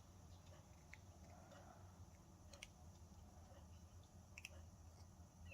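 Near silence with a few faint, scattered clicks and taps of cardboard board-game pieces being fitted together by hand.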